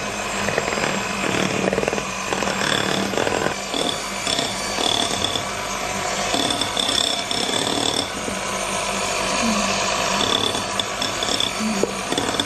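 Electric hand mixer running steadily with a low hum, its beaters churning cake batter in a glass bowl.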